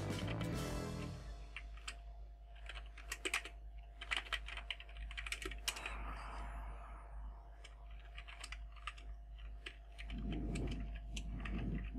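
Typing on a computer keyboard: irregular runs of quick keystroke clicks, with short pauses between words.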